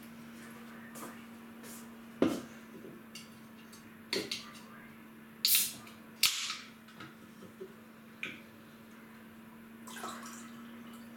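A drinks can and glass handled at a kitchen counter: a series of sharp clicks and knocks, with brief splashy hisses of a soft drink being poured around the middle, over a steady low hum.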